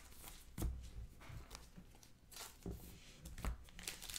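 Faint handling noise from a stack of sleeved trading cards being sorted by hand: a few soft, scattered taps and slides of card on card.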